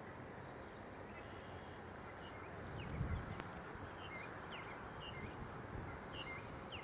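Small birds chirping: short, repeated chirps over a steady hiss of outdoor background noise, with one low thump about three seconds in.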